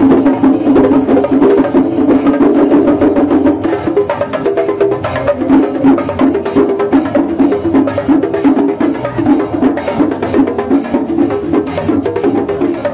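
Kerala temple festival percussion ensemble playing loudly: drums struck with sticks in dense, fast beats, with metallic clashes over them.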